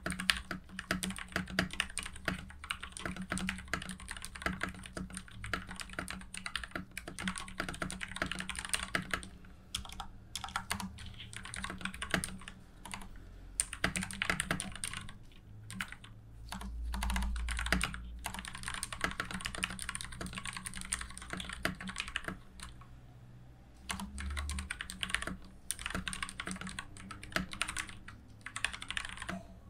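Typing on a TM680 mechanical keyboard fitted with lubed Gateron Yellow linear switches: a fast, continuous run of keystroke clacks with a few brief pauses.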